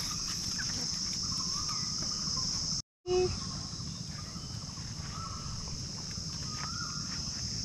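Steady high-pitched drone of insects, with a few faint short bird calls over it. The sound cuts out completely for a moment about three seconds in, followed by a short louder sound.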